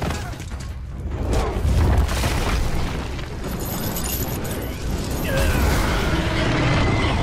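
Fight-scene soundtrack of fire blasts: heavy booming rumbles, strongest around two seconds in and again from about five seconds in as a fireball fills the screen. Voices and music sit underneath.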